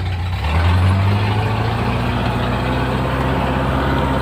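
Four-wheel-drive cargo truck's engine running under load as it drives up a dirt track, a steady low drone that comes in strongly about half a second in.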